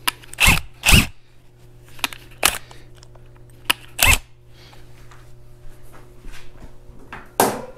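About five sharp clacks and knocks spread over several seconds, with fainter ticks between, as step drill bits and their packs are handled, over a steady low hum.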